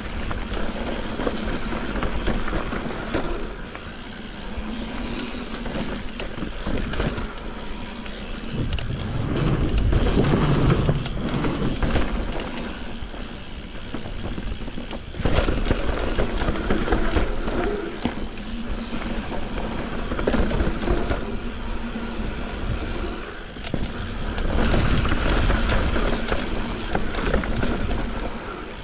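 Mountain bike riding down a dirt trail: tyres rolling over dirt and stones and the bike rattling, a continuous rough noise that rises and falls in loudness.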